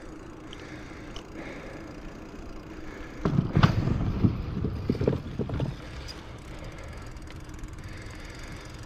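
Bicycle tyres rolling across the wooden planks of a small footbridge: a run of knocking and rattling from about three seconds in, lasting about two and a half seconds. Before and after it, a steady low rumble of the bike rolling on an asphalt path.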